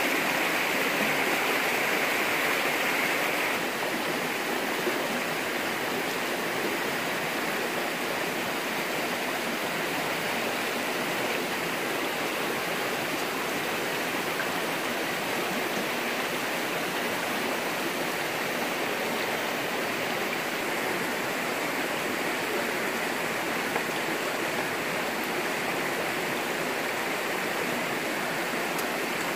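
Shallow stream running over rocks: a steady rush of flowing water that drops slightly in level about three and a half seconds in.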